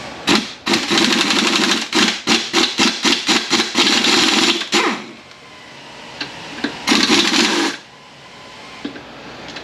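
Hand-held pneumatic wrench with a Torx bit rattling in short bursts on a transmission case bolt: one long run with brief pauses, then a second short burst near the end.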